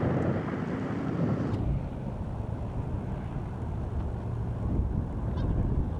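Steady low outdoor rumble. A higher hiss over it cuts off abruptly about a second and a half in, leaving only the low rumble.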